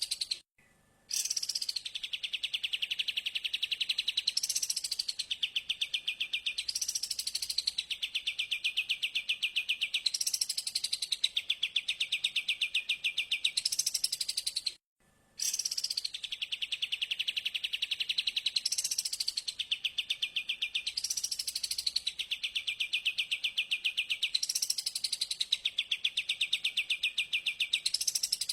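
Recorded songbird call played on a loop: a fast run of rapid, high repeated notes, with a sweep that rises and then falls about every two seconds. It cuts out briefly twice, just after the start and about halfway through, where the loop restarts.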